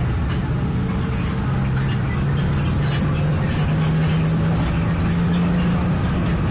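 Cabin drone of a Golden Dragon XML6125 low-entry city bus under way: the engine and driveline hum rises steadily in pitch from about a second and a half in as the bus picks up speed, then holds, with faint rattles over it.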